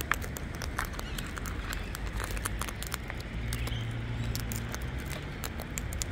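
Sulphur-crested cockatoos feeding from a plastic seed tray: a continuous, irregular stream of sharp ticks and clicks as their beaks pick at and crack the seeds.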